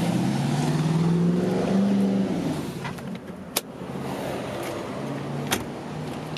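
A car engine running steadily, loudest and rising slightly in pitch over the first two seconds, then quieter. Two sharp clicks come about three and a half and five and a half seconds in.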